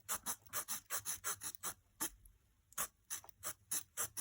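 Victorinox Swisschamp pocket-knife wood saw blade sawing through a piece of wood in quick back-and-forth strokes, about four or five a second, with a short pause about two seconds in.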